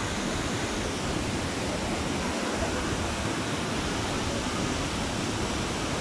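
Tall waterfall plunging into a pool: a steady, even rush of falling water.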